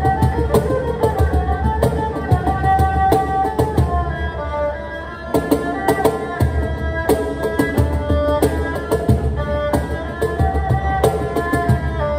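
Erhu and cajon playing an improvised duet: the erhu bows a gliding melody over busy hand strokes on the cajon. The drumming thins out for about a second midway, then comes back in hard.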